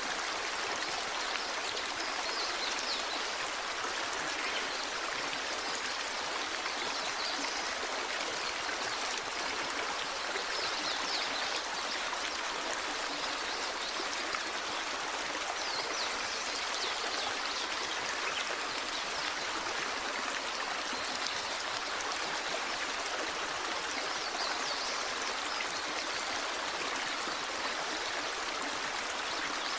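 Small waterfall splashing into a stream: a steady, even rush of falling water.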